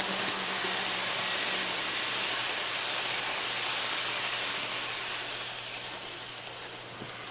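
Kato N scale Santa Fe Super Chief (F7 diesel and streamlined passenger cars) running past on its track: a steady rushing whir of the small motor and wheels on the rails over a faint low hum, fading in the last couple of seconds as the train moves away.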